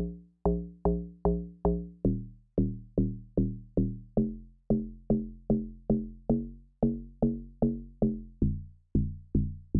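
Amapiano-style log drum bass from FL Studio's Fruity DX10 FM synth playing a repeating pattern. Short pitched notes, about two to three a second, each struck sharply and quickly dying away, with the pitch moving from note to note.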